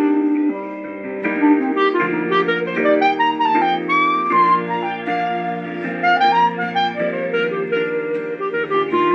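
E-flat piccolo clarinet playing a pop ballad melody, with a few smooth slides between notes, over an accompaniment of sustained chords.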